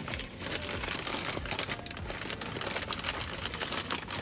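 Paper crinkling and rustling as a brown paper takeout bag and a paper sandwich wrapper are handled, a steady run of small crackles.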